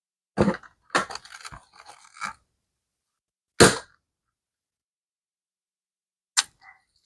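Short handling noises: a quick run of scuffs and knocks in the first couple of seconds, then two single sharp knocks a few seconds apart.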